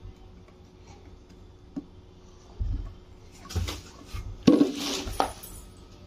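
Hollow plastic containers of a gravity water purifier being handled and moved: a few knocks and clatters in the second half, with soft thumps of the plastic being set down.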